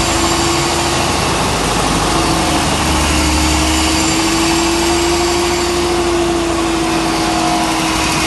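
Large spark-ignited biogas generator engine of a 450 kW genset running steadily in operation: a loud, dense, even mechanical din with a steady hum held through it.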